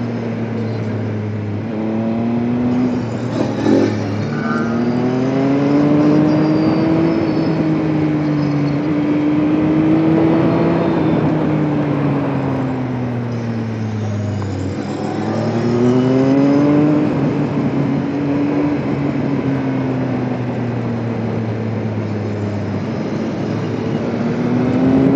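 Motorcycle engine heard on board while riding. The revs climb and fall several times as the bike accelerates and eases off, over steady wind and road rush, with a brief sharp knock a little before four seconds in.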